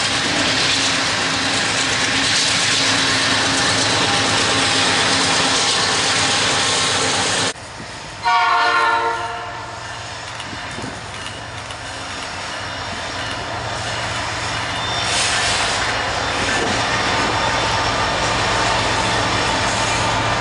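Freight train rolling past with a steady rush of wheel and car noise that cuts off suddenly. After a moment's silence, a diesel locomotive's multi-note horn sounds one loud blast of about a second and a half, then more freight cars roll by, growing louder toward the end.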